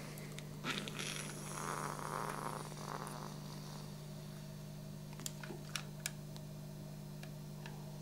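Soft, breathy exhaling as e-cigarette vapour is blown into a smoke alarm: two gentle puffs of breath starting about a second in, over a steady low hum, followed by a few faint clicks.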